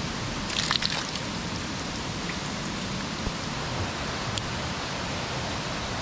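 A swollen stream rushing steadily over rocks. A short clatter sounds about half a second in.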